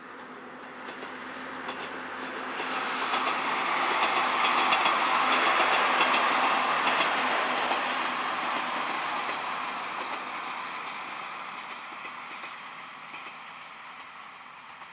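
Kanto Railway Joso Line diesel railcar passing on the track, its engine and wheels on the rails growing louder to a peak about five seconds in, then fading slowly as it moves away.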